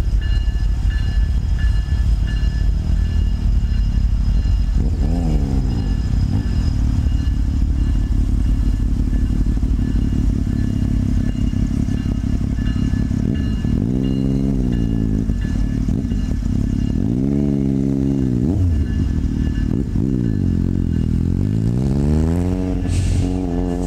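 A freight train's diesel locomotive approaching slowly as it pulls into a siding, a steady low engine rumble throughout. The engine's pitch slides down and back up several times.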